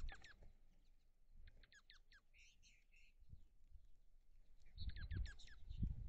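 Small songbirds chirping: quick runs of short, falling chirps at the start, again around two seconds in, and again about five seconds in. Faint low thumps and rumble near the end.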